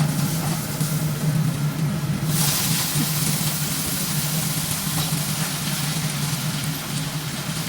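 Steady low hum of a kitchen range-hood fan, with food sizzling in a hot pan; the sizzle grows louder and brighter about two seconds in.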